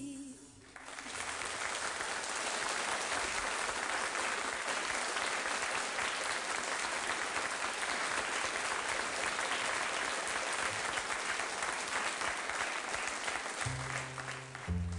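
A studio audience applauding with steady, dense clapping for about thirteen seconds, just as the last note of a jazz song dies away. Near the end, low bass notes start the next tune under the applause.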